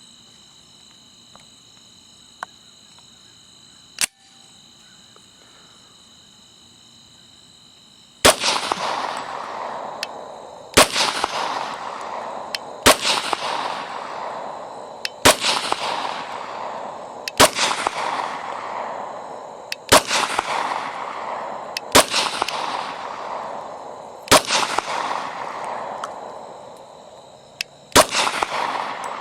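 A Glock 23 Gen 4 pistol firing Federal 180-grain full metal jacket .40 S&W rounds: nine single shots spaced about two to three seconds apart, starting about eight seconds in, each followed by a long fading echo. Before the shooting, crickets chirp steadily, with one sharp click about four seconds in.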